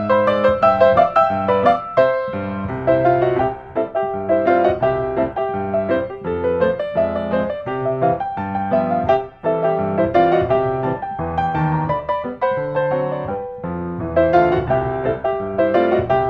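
Background piano music, a continuous run of quick notes at a steady pace.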